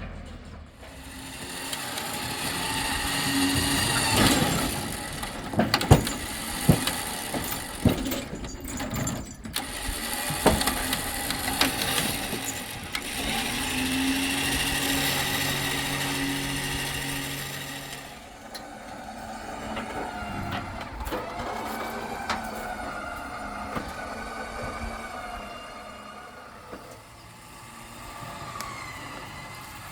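A vehicle engine running and changing speed as it manoeuvres to turn around with a wagon in tow, with scattered sharp metal clanks and knocks. The engine sound changes and eases off a little past halfway.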